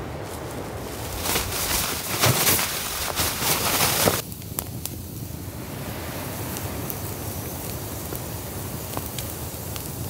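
Gusty wind rushing loudly for the first few seconds, cutting off suddenly about four seconds in. Then a small wood campfire crackling, with scattered sharp pops over a quieter hiss.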